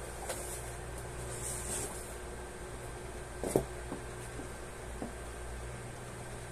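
Handling noises as a white air purifier is lifted out of its cardboard box: light rustling and scraping, with one sharp knock about three and a half seconds in and a few small ticks after it, over a steady low hum.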